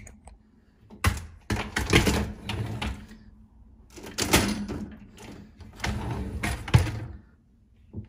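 Plastic cutlery basket and wire dish racks of a dishwasher rattling and clacking as they are handled and set back in place, in three stretches of clatter with a sharp knock near the end.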